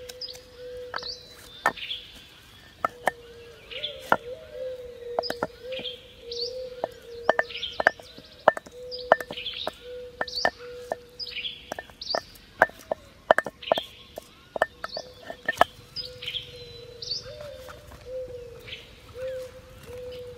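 Sharp, irregular knocks and taps from a clay mortar being worked and emptied of yellow spice paste, mostly one or two a second and thinning out after about fifteen seconds. Birds chirp throughout, with short rising calls about once a second.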